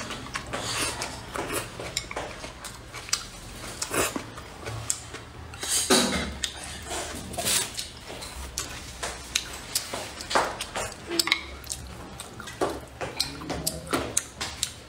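Close-miked eating of braised pork belly: wet chewing and lip smacking, with chopsticks clicking against the plate. There is a louder bite or slurp about six seconds in.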